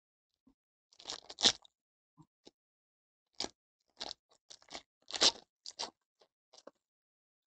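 A foil trading-card pack of 2022 Panini Donruss Elite Football being crinkled and torn open by hand, in a series of short crackles, the loudest about a second and a half in and again about five seconds in.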